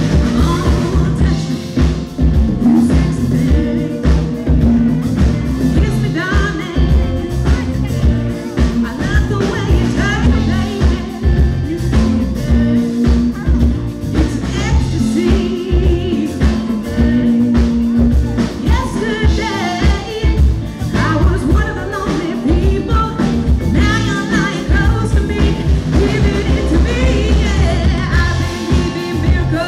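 Live band playing a rock song, with drums, bass guitar and electric guitars under women's lead vocals sung into microphones.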